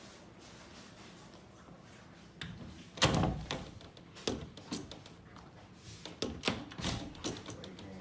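A series of sharp knocks and clicks from the handle and latch of a Foxgard fingerprint door lock being worked. The loudest clunk comes about three seconds in, after a quiet start, and smaller clicks follow.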